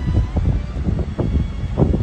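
Wind buffeting a phone's microphone: an irregular, gusty low rumble.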